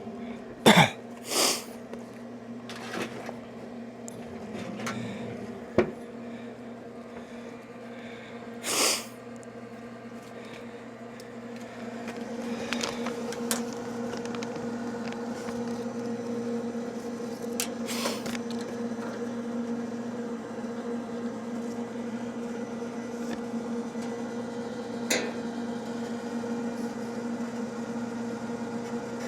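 Steady hum of a small electric motor, with several sharp knocks and clatters over it, the loudest about a second in.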